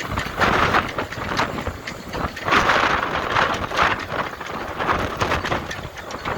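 Hurricane-force wind gusting and buffeting the microphone, rushing in uneven surges. The strongest surges come about half a second in and again from about two and a half to four seconds in.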